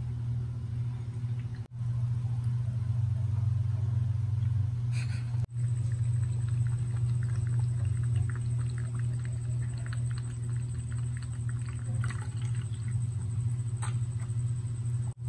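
Electric cat drinking fountain running: its submersible pump hums steadily while water trickles from the faucet spout into the basin. From about six seconds in, a cat laps at the water in quick small ticks.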